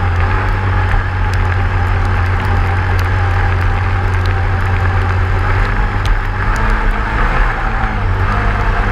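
ATV engine running steadily with a low, even drone, and occasional light clicks over it.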